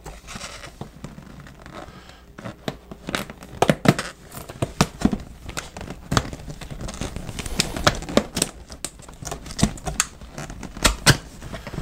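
Stiff panel pieces of a soft car-hauler bag being pressed and slid into place by hand: irregular clicks, creaks and crinkling, a few sharper snaps among them.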